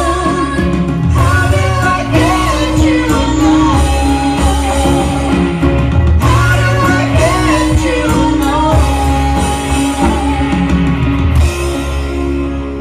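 Rock music with a singer over guitar, bass and drums; the singing stops and the music thins out near the end.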